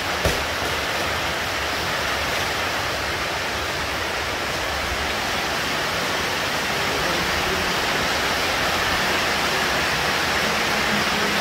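Heavy rain falling steadily: a constant, even rush of water. There is a single short knock just after the start.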